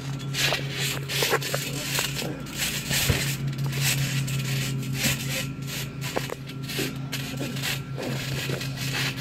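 Feet and bodies scuffing and thudding on a trampoline mat during grappling: many short rubbing scrapes and knocks, over a steady low hum.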